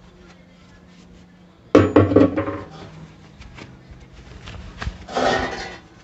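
Metal hand tools, a hammer and an impact driver, clank down against the stainless steel drum of a top-load washing machine a little under two seconds in, ringing briefly. A few light knocks follow, then a short rustle near the end.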